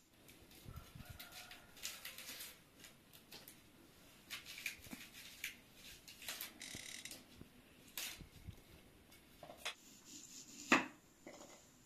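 Knife and hands working an onion on a wooden chopping board: scattered small clicks, taps and rustles, with one sharp knock of the knife on the board near the end, the loudest sound.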